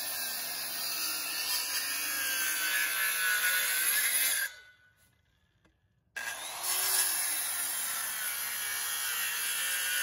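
Corded circular saw cutting into the end of a round log, running on battery power from a portable power station without bogging down. The cutting stops about four and a half seconds in and starts again about a second and a half later.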